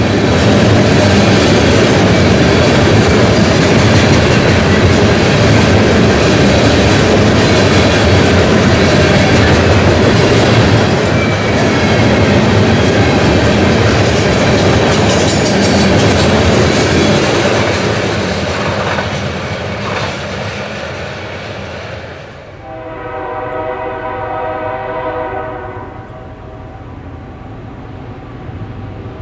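Freight train passing close by with loud, steady rail and wheel noise that fades away after about 18 seconds. About 22 seconds in, a train horn sounds one long blast of roughly three seconds.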